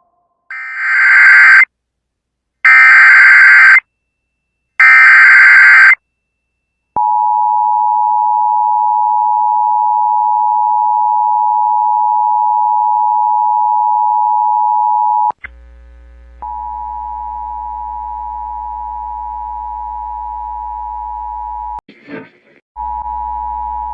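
Emergency Alert System header: three loud one-second bursts of data tones a second apart, then the two-tone EAS attention signal held steady for about eight seconds, heralding a severe thunderstorm warning. After a short drop, the tone returns quieter over a low hum, broken by a click near the end.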